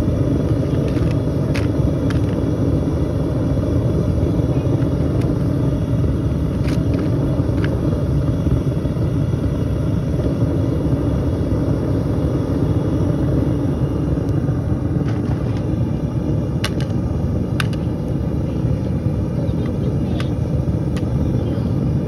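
Steady low rumble with a few faint sharp clicks scattered through it.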